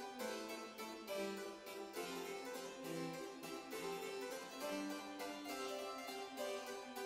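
Background instrumental music with a quick, even run of notes.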